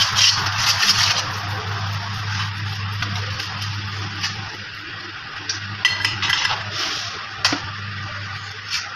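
Light metallic clinks and scraping over a steady low hum, with a few sharp clicks in the second half.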